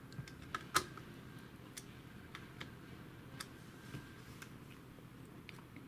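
Faint, scattered clicks and ticks of a small screwdriver tightening the screws that hold a laptop's heatsink to the motherboard, with a sharper click about a second in.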